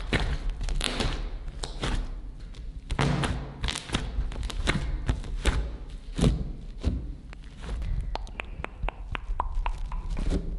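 Hands squeezing and kneading a bathtub-sized mass of glue and shaving-foam slime, close to the microphone for ASMR: irregular wet squelches and soft thuds, turning into a quick run of small sharp pops and clicks in the last few seconds.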